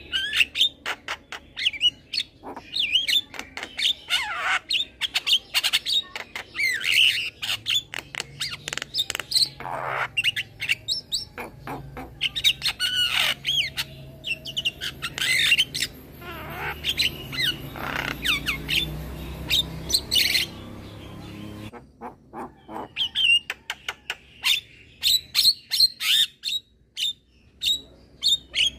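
Young male Javan myna calling and singing: a rapid, continuous stream of harsh squawks, chatters and short whistled notes with brief pauses. A low hum runs underneath through the middle and stops suddenly about two-thirds of the way in.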